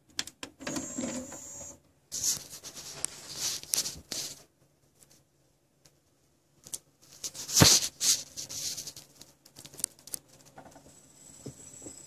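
Handling noises: rustling and scraping with scattered clicks, and one sharp knock about seven and a half seconds in. Near the end a faint steady high whine sets in.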